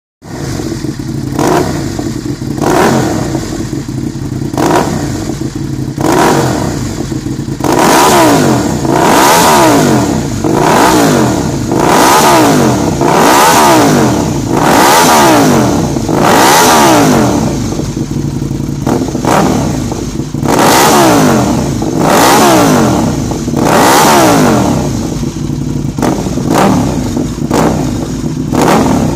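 Aprilia RSV 1000 Tuono's 60-degree V-twin engine idling and being revved on the spot through loud Quill GP sport silencers. There are short throttle blips at first, then a long run of fuller revs, each rising and falling over about a second and a half, and short blips again near the end.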